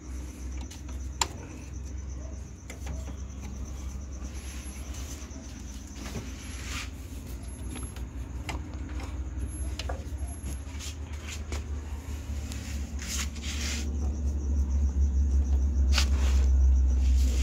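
Scattered clicks and knocks of hands and tools working the old power steering hose loose among the lines of a 1994 Ford Ranger's engine bay, with one sharp knock about a second in, over a low rumble that grows louder in the last few seconds. Crickets chirp steadily in the background.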